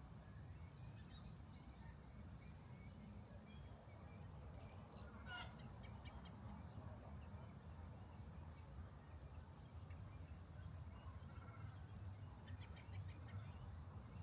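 Faint outdoor ambience: a steady low rumble with a few distant bird calls, one about five seconds in and a quick run of chirps near the end.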